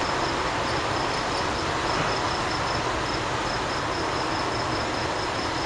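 Crickets chirping in a steady, high-pitched pulse of about four chirps a second over a constant hiss of night-time background noise.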